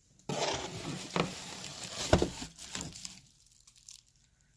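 Packaging rustling as products are handled and pulled from a gift box, with a few sharp knocks, the loudest about two seconds in, then it goes quiet.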